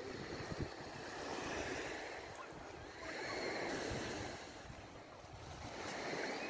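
Sea waves washing onto a beach, swelling and fading three times, with wind rumbling on the microphone.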